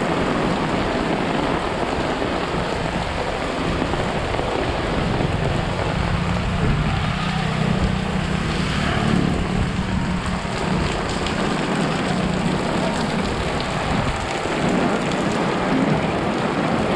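Heavy rain pouring steadily onto the street and the shop awnings. A low steady hum joins in after about five seconds and fades about eight seconds later.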